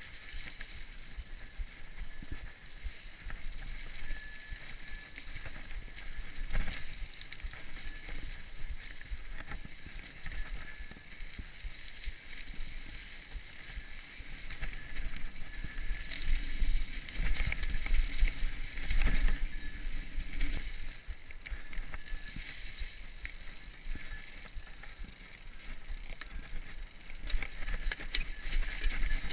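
Mountain bike riding over leaf-covered dirt singletrack: tyres rolling over the trail, with frequent knocks and rattles from the bike over bumps, and a low wind rumble on the microphone. It grows louder for a few seconds midway and again near the end.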